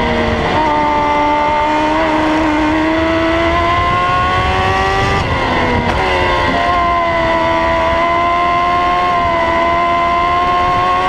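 Onboard sound of a Formula X single-seater racing car's engine under hard acceleration. The engine note climbs slowly in pitch, drops sharply about five seconds in, then climbs again.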